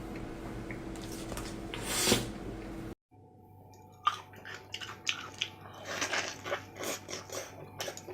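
Close-miked eating: after a steady background hum with one short crunch or rustle about two seconds in, the sound cuts off. From about four seconds there is chewing and biting, a quick run of wet clicks and crunches.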